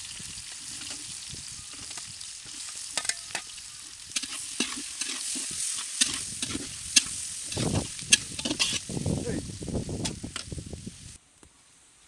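Sliced onions sizzling in hot mustard oil in a kadai, with a ladle scraping and clicking against the pan as they are stirred, busiest in the second half. The sizzling cuts off abruptly about a second before the end.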